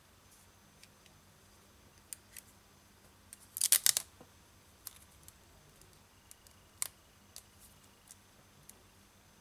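Small plastic and metal clicks and taps from handling an opened smartphone's frame and circuit board, with a quick cluster of louder clicks about three and a half seconds in and another single click a few seconds later.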